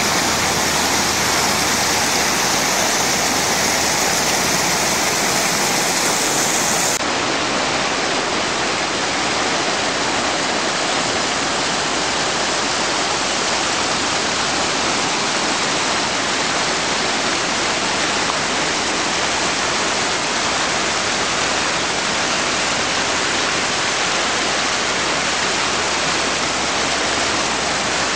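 Mountain stream rushing over granite boulders in shallow rapids: a loud, steady rush of white water.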